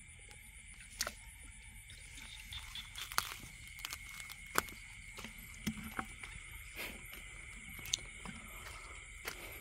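Night insects chirring steadily in two high, even tones, over a low rumble. About seven short, sharp knocks are scattered through it.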